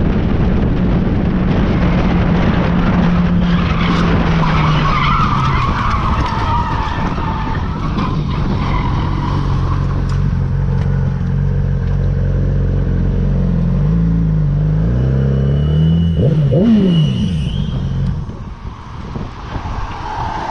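Sport motorcycle engine running at highway speed under heavy wind rush. Its pitch drops about five seconds in, then dips and rises again before it eases off near the end, as the rider slows. A higher squeal in the middle fits tyres skidding as a car ahead slides out of control.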